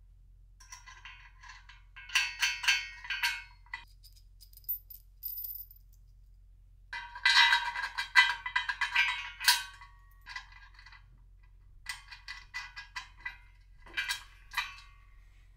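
Crinkling and crackling of a paper label being peeled off a black steel frame tube and handled, in irregular bouts with quiet gaps; the busiest stretch comes about seven to ten seconds in.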